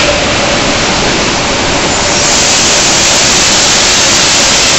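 Coal pouring out of the open bottom-discharge doors of a BOBR hopper wagon into the track hopper: a loud, steady rushing noise that grows a little brighter about two seconds in.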